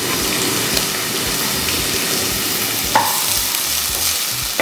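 Chopped onion sizzling in hot oil in a pan as it starts to sauté, a steady frying hiss, with one sharp knock about three seconds in.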